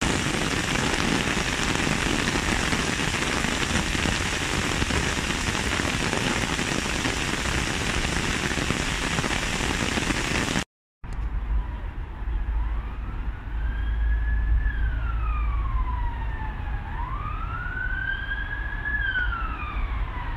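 Heavy rain on a flooded road, a steady loud hiss. After a brief break about ten seconds in, an emergency vehicle's siren wails, slowly rising and falling twice, over a low rumble.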